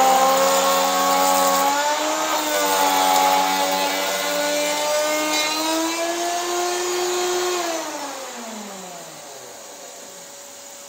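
Router in a router table running as a solid pine board is fed past a rabbeting bit, its pitch shifting a little with the cut. About eight seconds in it is switched off and winds down in a falling whine, leaving a quieter steady hum.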